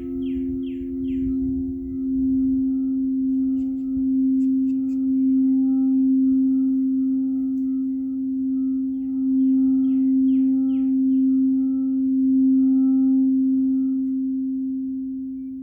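Singing bowl sounding a sustained, steady ringing tone that swells and eases in slow waves, fading a little near the end. A bird's quick run of short chirps comes briefly at the start and again about ten seconds in.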